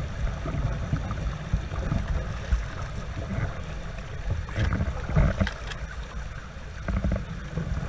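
Rushing river water churning over rocks below a low dam, close around an aluminium canoe, with a heavy low rumble of wind on the microphone. A few knocks and splashes about halfway through, from paddle strokes and the hull.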